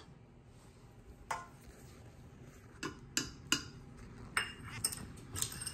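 A measuring spoon tapping and clinking against a stainless steel stand-mixer bowl as salt is shaken in: about seven light, scattered clicks.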